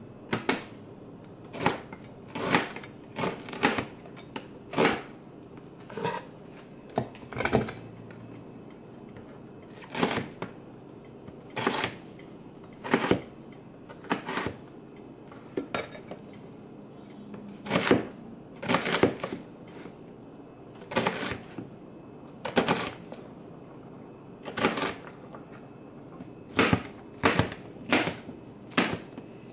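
Chef's knife chopping red onion and mushrooms on a plastic cutting board: irregular sharp knocks of the blade on the board, about one a second, sometimes two or three in quick succession.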